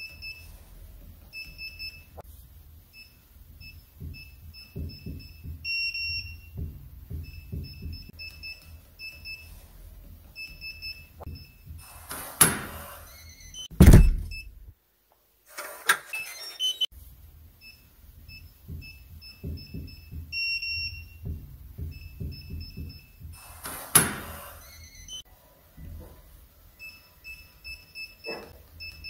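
Digital door lock on a front door: strings of short high keypad beeps as the buttons are pressed. A noisy burst comes about 12 seconds in, then a loud clunk of the lock and door about 14 seconds in. The beeping starts again, with another noisy burst about 24 seconds in.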